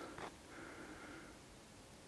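A quiet night with one short sniff close to the microphone about a quarter second in, over faint steady tones in the background.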